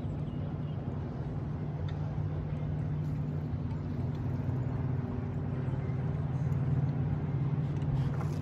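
A boat motor's steady low hum, growing a little louder in the second half.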